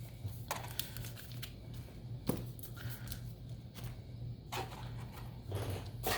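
Scattered light taps and brief rustles of foil booster packs and cardboard boxes being handled and sorted, over a faint low hum.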